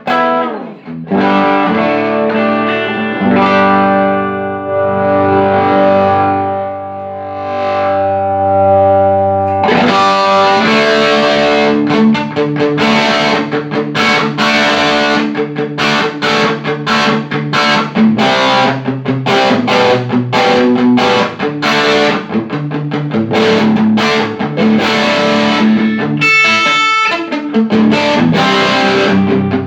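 Electric guitar played through a Laney Cub12 valve amp with EL84 output valves, freshly repaired after a blown output transformer, a shorted EL84 and bias supply faults. Held chords ring out for about the first ten seconds, then a brighter, distorted passage of fast picked notes.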